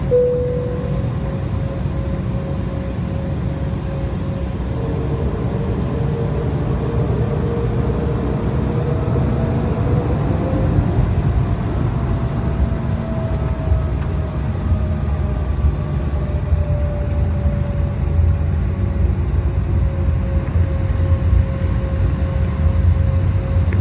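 Cabin noise of an Embraer 190 airliner's turbofan engines (GE CF34-10E) with a steady low rumble of airflow. A steady engine tone rises in pitch and eases back down midway. The rumble grows a little louder near the end.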